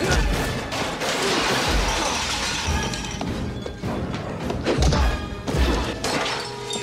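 Film fight sound effects over the score: a run of heavy punches and body thuds, about five in all, with a long crashing, shattering clatter from about a second in.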